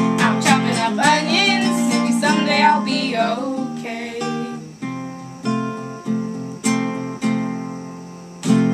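Strummed acoustic guitar accompanying a woman singing for the first few seconds. Then the guitar plays alone, with separate strummed chords roughly every half second to second, growing softer, and one last loud strum near the end.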